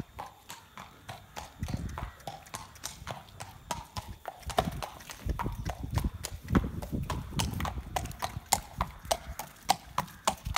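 Hooves of a racehorse clip-clopping at the trot as it is trotted up. The hoofbeats grow louder and settle into a steady, even rhythm from about halfway.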